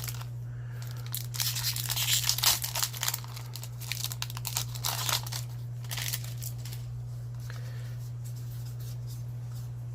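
Foil booster-pack wrapper being torn open and crinkled in the hands, a dense crackling for a few seconds that fades out about six seconds in, over a steady low hum.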